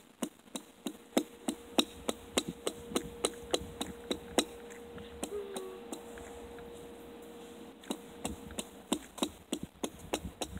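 A machete chopping pond ice to widen a fishing hole: a quick run of sharp strikes, about three a second, pausing briefly a little past halfway, then starting again.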